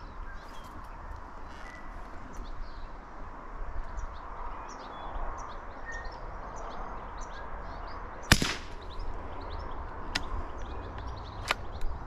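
Small birds chirping and twittering throughout, with one sharp crack about eight seconds in and a fainter click about three seconds later.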